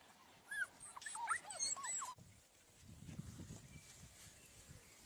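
A litter of puppies yipping and whining, many short, arching high cries overlapping, cut off abruptly about two seconds in. Faint low rustling follows.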